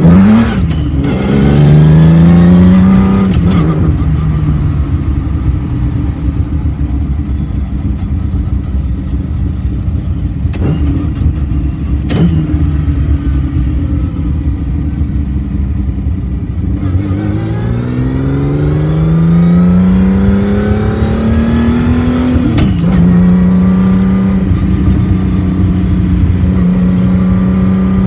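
The Volvo B30 straight-six engine of a 1970 Marcos 3000 GT heard from inside the cabin, pulling through the gears of a Quaife sequential gearbox: the revs climb and drop sharply at each upshift, near the start, about three and a half seconds in and again near the end, with steadier running in between. A few short sharp knocks come through now and then.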